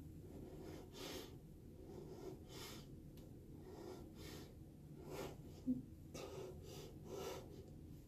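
Faint, irregular breaths from a person, about nine short puffs, with a brief low blip about two-thirds of the way through.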